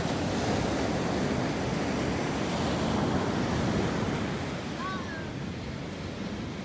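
Surf breaking and washing up a sandy beach, a steady rushing noise with wind on the microphone. A brief faint chirp about five seconds in.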